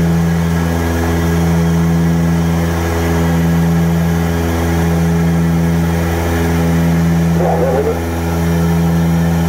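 Antonov An-24's Ivchenko AI-24 turboprop engines and propellers droning steadily in flight, heard from inside the cabin. The drone pulses with a slow beat, swelling and fading about every second and a half.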